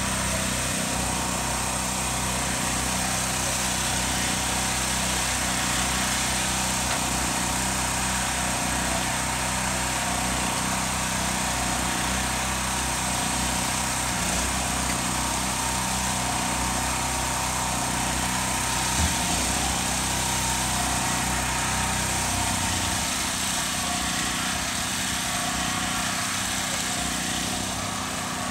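Small gasoline engine running steadily at a constant speed; its low hum thins out about 23 seconds in. A single short knock sounds about 19 seconds in.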